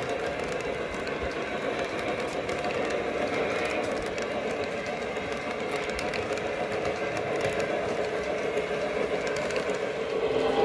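Lionel O-scale passenger cars rolling past on three-rail track: a steady rolling rumble of the wheels with rapid light clicks, getting louder near the end.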